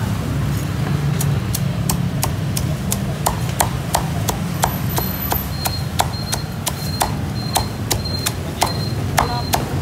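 Cleaver chopping crispy-skinned roast pork on a round wooden cutting board: quick, even strokes at about two to three a second, over a steady low hum.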